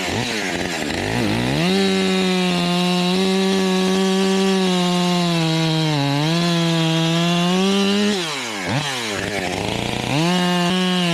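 Husqvarna 545 two-stroke chainsaw revved up and held at full throttle for about six seconds, its pitch sagging briefly partway through. It then drops off with a few quick throttle blips and revs up again near the end.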